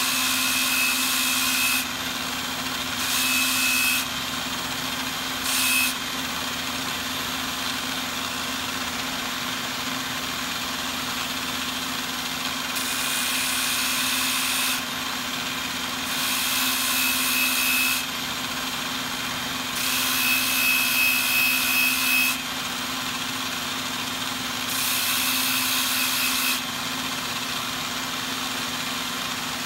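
Electric angle grinder fitted with a sanding disc running steadily, with about seven louder bursts of scratchy sanding as a small wooden piece is pressed against the spinning disc.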